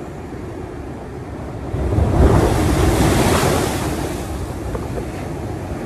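Ocean surf breaking and washing up the beach, with wind buffeting the microphone; a wave surges loudly about two seconds in, then slowly eases.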